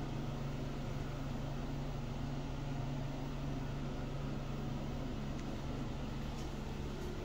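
Steady ventilation fan hum: a low, even drone over a constant hiss.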